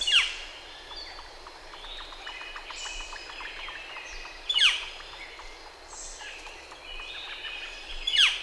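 Northern flicker giving its loud, sharply descending scream call three times, about four seconds apart. Other birds sing faintly in the background.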